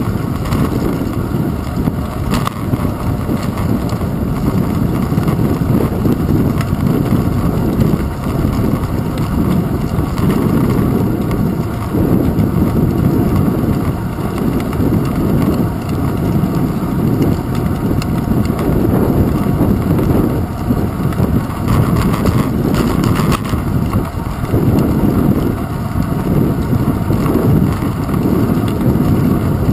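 Wind buffeting a handlebar-mounted GoPro and the rumble of bicycle tyres on pavement while riding: a loud, steady, low rumble that swells and dips, with a couple of brief knocks.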